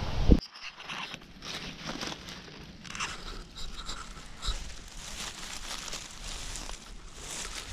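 Dry leaf litter and grass crunching and rustling in scattered crackles as someone moves through it. Wind buffeting the microphone cuts off suddenly about half a second in.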